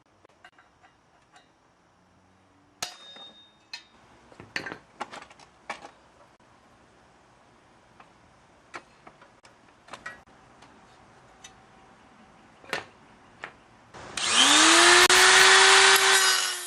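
Scattered metal knocks and clinks of work on a bike frame. About 14 s in, a power tool's motor spins up with a quickly rising whine and runs loud for a couple of seconds, then stops near the end.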